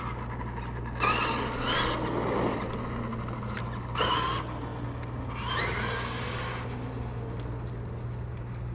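Arrma Kraton 8S RC car's 780kv brushless motor whining up in pitch in three short throttle bursts, about a second, four seconds and five and a half seconds in, as the car is driven in short runs to get it tracking straight.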